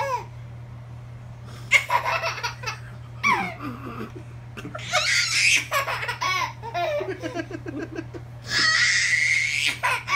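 A baby laughing hard in repeated bursts, giggles and belly laughs, ending in a long high squeal of laughter near the end.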